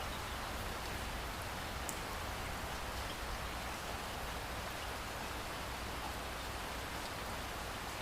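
Steady rain falling, an even hiss with a low rumble underneath and a few faint drop ticks.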